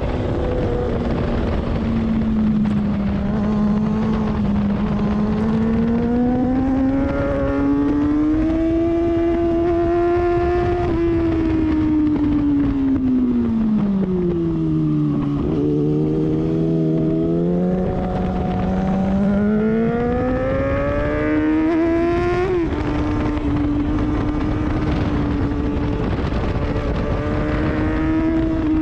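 Sport motorcycle engine on a track lap, with wind noise on the tail-mounted camera. The engine note falls away as the bike slows for a corner, then rises under hard acceleration. About two-thirds through the pitch drops suddenly at an upshift, then holds steady.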